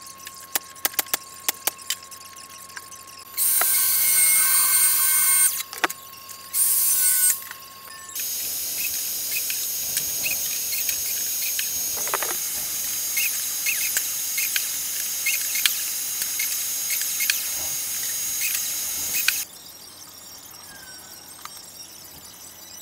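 A power tool running in three bursts, each switched on and cut off abruptly, with a steady high whine over a loud hiss: two short runs, then a longer one of about eleven seconds. A few sharp clicks come before the first run.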